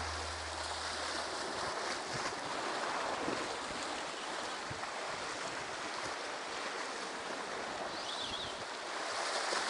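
Sea surf washing against a rocky shore, a steady rushing noise, with wind on the microphone.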